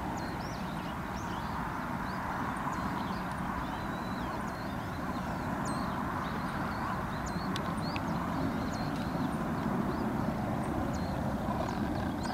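Many short, high bird chirps and quick whistled notes over a steady rushing noise that grows slightly louder after a few seconds.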